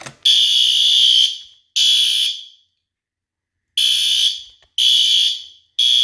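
System Sensor SpectrAlert Advanced P2R horn strobe sounding a loud electronic fire alarm horn in short blasts: two, then a pause of about a second and a half, then three evenly spaced ones, the temporal-three evacuation pattern. The alarm was set off by pulling a Fire-Lite BT-12 manual pull station.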